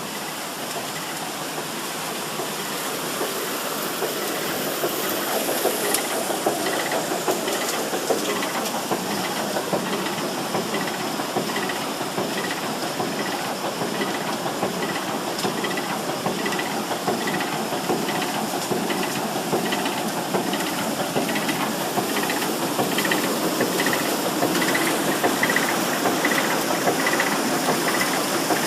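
Mineral jig machine running: a steady rush of pulsing water with a light, regular tick about one and a half times a second from the drive. The sound builds a little over the first few seconds, then holds steady.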